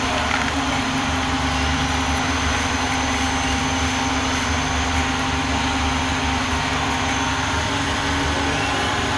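A pearl-drilling machine's small electric motor running at a steady speed with an even hum.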